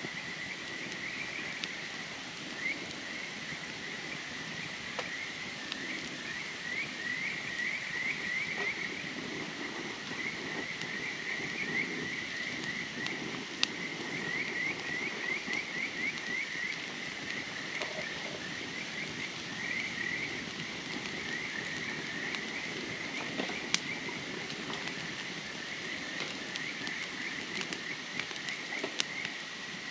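Outdoor chorus of rapid, high chirping animal calls in overlapping runs over a steady rushing hiss, with a few sharp clicks now and then.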